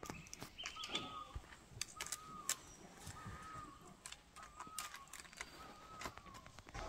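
A bird repeats a short call about once a second, over scattered light clicks and knocks.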